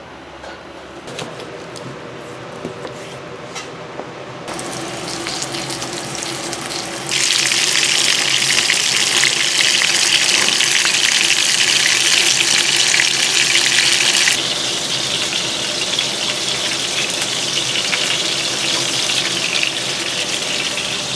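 Kitchen tap running into a sink, with a few light clicks at first; the flow is turned up sharply about seven seconds in and eased back about halfway through, then runs steadily.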